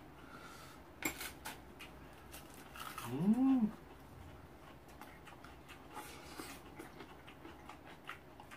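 A small dog gives one short whine that rises and falls, about three seconds in. Light clicks of chopsticks and spoons against bowls sound here and there around it.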